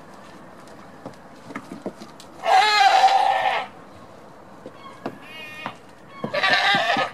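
Goats bleating: one loud bleat lasting about a second, starting about two and a half seconds in, a fainter call a little later, and another loud bleat near the end. Small clicks and knocks sound faintly between the calls.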